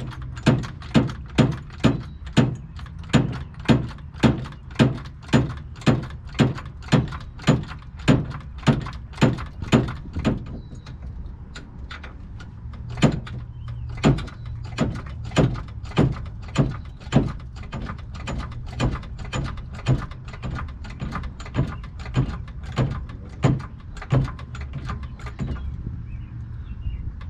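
A car jack being pumped to lift the rear axle, with a sharp clunk on each stroke about twice a second. The pumping pauses briefly near the middle, then picks up again.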